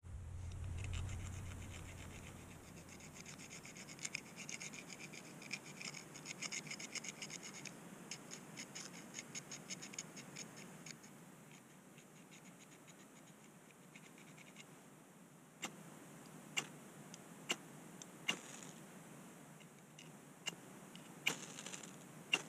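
Knife blade scraping in quick repeated strokes for several seconds, then a series of sharp single clicks about a second apart, the blade working over kindling.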